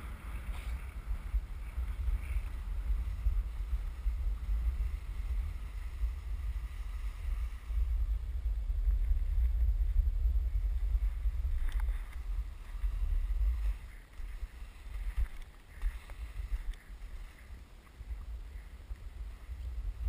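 Wind buffeting the microphone of a skier's action camera as it moves downhill, a constant low rumble with the hiss of skis sliding on packed snow. It is strongest midway and eases off over the last few seconds.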